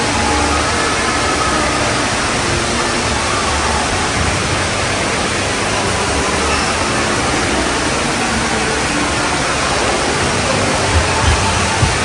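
Steady rushing hiss of water from fountain jets in an indoor pool, with a faint murmur of voices behind it. A few soft low thumps come near the end.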